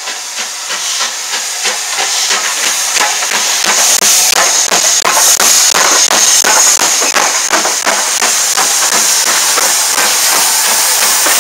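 Two steam locomotives double-heading a train, a Stanier 8F 2-8-0 leading and a Bulleid light Pacific behind, passing close by. Their exhaust chuffs in a steady beat of about three a second, getting louder as they come alongside, and a loud steam hiss joins about four seconds in and keeps on.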